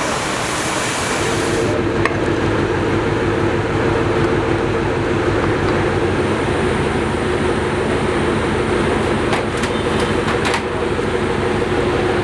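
Steady mechanical roar and low hum of a commercial kitchen, with a few light clicks near the end.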